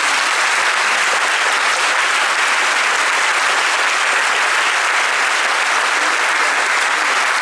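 Large audience applauding steadily, sustained clapping from many hands.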